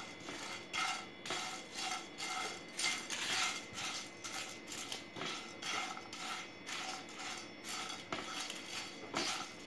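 A silicone spatula stirring and scraping dry whole spices (dried red chillies, bay leaves, cloves, cinnamon, peppercorns) around a nonstick pan as they dry-roast, in repeated strokes about twice a second, with the hard spices rattling and skittering over the pan's surface.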